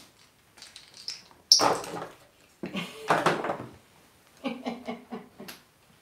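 Plastic toys knocking and clattering in a wooden drawer as an African grey parrot rummages through them with his beak: a sharp knock about a second and a half in, a longer rattle around three seconds, and a cluster of short knocks near the end.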